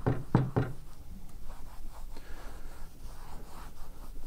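Dry cloth rag rubbing back and forth over a welded metal test plate, wiping off excess penetrant during the removal step of a liquid penetrant test: faint, irregular scuffing, with three short, louder low sounds in the first second.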